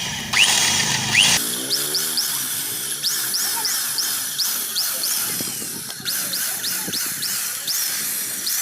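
Electric drill running as an 8.5 mm bit bores into metal, with many short rising squeaks, about two a second.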